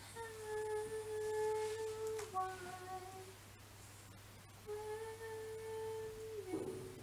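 A woman humming softly in a few long held notes. The first note steps down to a lower one, and after a pause a second long note bends down as it ends.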